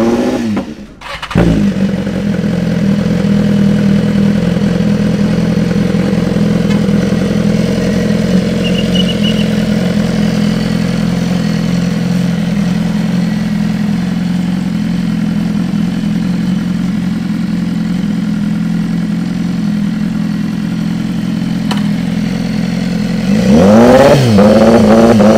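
BMW S1000RR inline-four superbike engine: it drops out briefly, is started again about a second in and settles to a steady idle, then near the end rises to a louder, faster steady note held at about 3500 rpm by the pit limiter.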